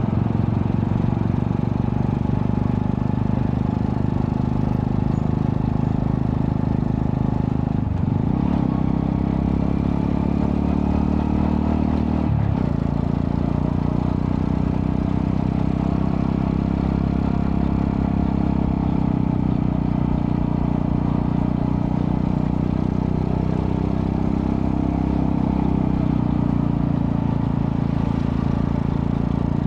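Single-cylinder engine of a Honda Astrea Prima-based 110cc streetcub running through a custom underbelly exhaust with a resonator. Its note is steady, with a brief break and a change in pitch about eight seconds in and again about twelve seconds in.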